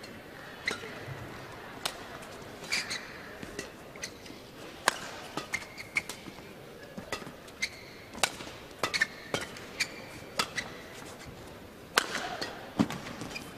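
Badminton in play: sharp racket hits on the shuttlecock and short squeaks of shoes on the court mat, over steady arena crowd noise. The loudest hit comes near the end.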